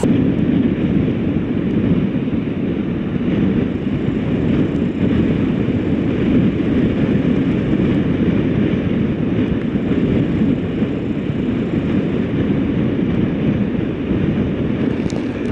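Strong wind buffeting the microphone: a steady, loud low rumble.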